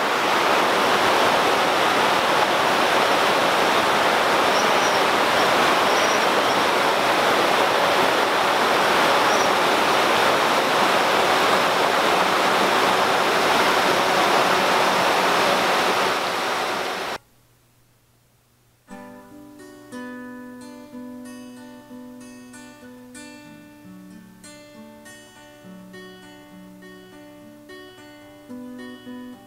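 A loud, steady rushing noise that cuts off suddenly after about seventeen seconds. After a brief silence, plucked acoustic guitar music begins.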